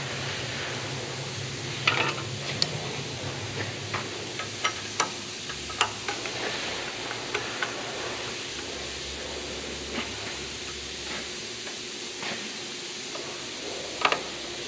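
Scattered light metallic clicks and clinks of a hand tool and pin hardware on the steel pivot of a dozer log arch, over a steady hiss of shop background noise.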